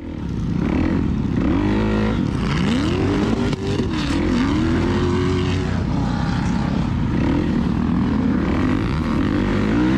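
Off-road motor vehicle engines revving. The pitch climbs and drops in several sweeps over the first half, then settles into a steadier, wavering note.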